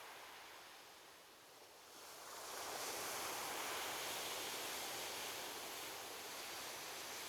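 Ocean surf: after a short lull, a wave surges in about two seconds in and its wash hisses on steadily.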